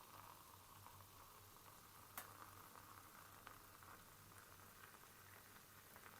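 Pepsi fizzing in a glass: a faint, steady crackle of carbonation bubbles popping, with a single sharp click about two seconds in.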